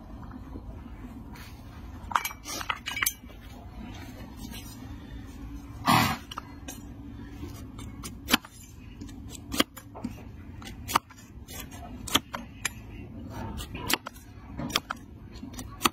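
A broad steel hoof-cutting blade being struck and chopped down through an overgrown donkey hoof against a wooden stool: a run of sharp, clinking knocks roughly one every second, with a heavier knock about six seconds in.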